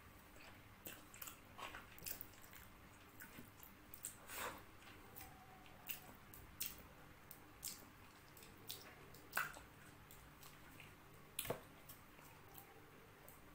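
Faint close-up eating sounds: wet chewing, lip smacks and finger-licking, heard as a scattering of short clicks and smacks with a couple of sharper ones late on.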